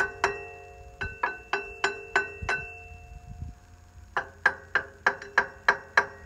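Metal struck repeatedly, about three times a second, each strike leaving a clear ringing tone: a run of strikes, a pause of about a second and a half, then another run.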